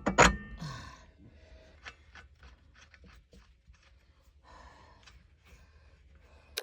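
A short pitched sound right at the start, then scattered faint clicks and taps over a low hum as the swivel seat base and its bolts are handled.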